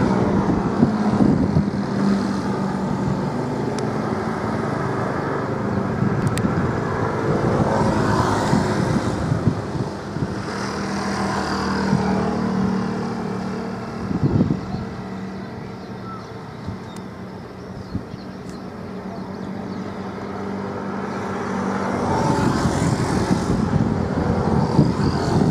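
Road vehicles passing close by, one after another, each rising and falling away within a second or two, over a steady low hum.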